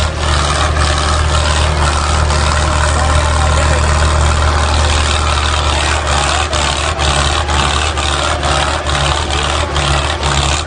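Mahindra Arjun tractor's diesel engine running loud and steady under heavy load in a tractor pull, over constant crowd noise.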